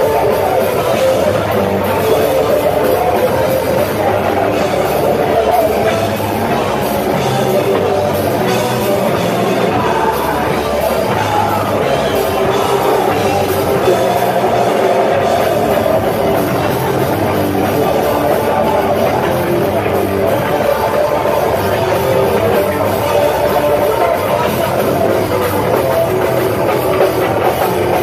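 Live hardcore punk band playing loud and fast: distorted guitar, pounding drums and a vocalist shouting into a microphone, heard from inside the crowd.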